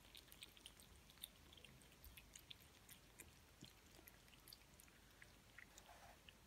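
Faint, irregular small clicks of a kitten chewing and licking wet cat food from a bowl.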